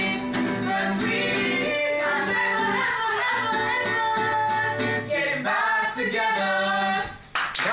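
Female and male voices singing together to an acoustic guitar; the song ends about seven seconds in, and applause breaks out just before the end.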